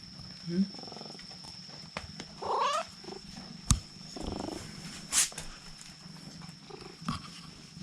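Domestic cat calling in a kitten-like meow to be let in, one drawn-out call about two and a half seconds in, with a few sharp clicks or knocks.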